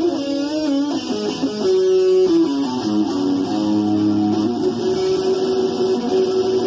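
Guitar music: plucked and strummed guitar playing held notes that move from pitch to pitch.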